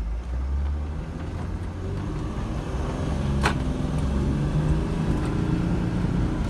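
Mercedes Sprinter's 3.0 OM642 six-cylinder turbo diesel running steadily, its engine note rising about a second in. The van has a failing turbo actuator that causes loss of power. A single sharp click sounds near the middle.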